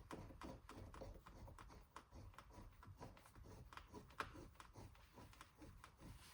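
Faint, irregular small clicks and ticks as a Jeep Gladiator side mirror's mounting screws are threaded in by hand, with one sharper click about four seconds in.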